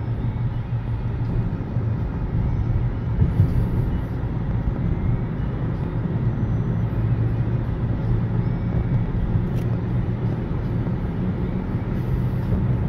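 Steady road and engine noise of a moving car heard from inside its cabin, a deep, even drone.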